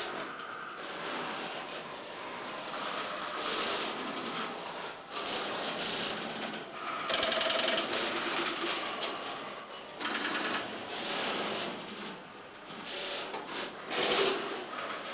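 Tesla P51 electromechanical telephone exchange at work: its switches and relays clatter in irregular bursts of rapid clicking, busier in stretches and loudest near the middle and toward the end, as calls are switched.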